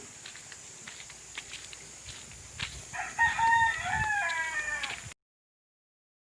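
A rooster crowing once, about three seconds in: one long call that falls in pitch at the end, over faint scattered ticks. The sound cuts off abruptly to silence about a second later.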